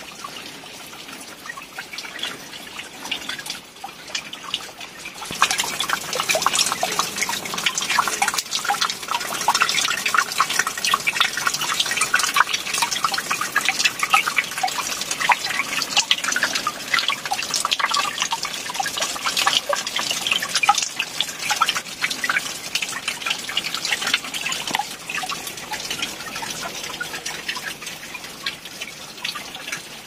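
Water dripping and splattering from a moss-covered rock face into shallow water below, many drops at once, getting louder and denser from about five seconds in.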